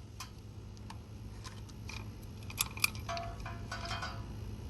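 Scattered light clicks and small rattles of ceiling fan parts being handled and knocked, over a steady low hum.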